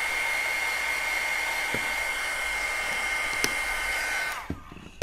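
Handheld craft heat tool blowing steadily with a high whine, drying wet acrylic paint on a paper tag. It is switched off about four seconds in and winds down with a falling tone.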